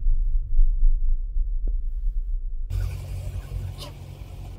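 Low rumble of road and engine noise inside a car's cabin. About halfway through it gives way suddenly to outdoor street noise with a steady low engine hum.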